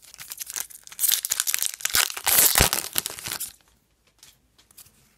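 Foil hockey card pack wrapper being torn open and crinkled, a dense crackling that stops a little past halfway through, followed by faint light ticks of the cards being handled.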